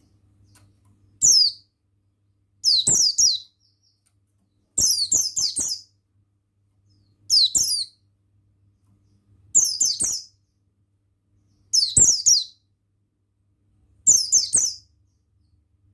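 Buxtoni white-eye (pleci) giving short bursts of high, quickly falling chirps, seven times at roughly two-second intervals.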